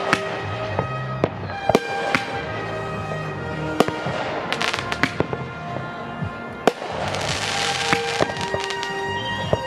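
Fireworks going off: sharp bangs at irregular intervals, with a dense burst of crackling about seven seconds in, over background music with held notes.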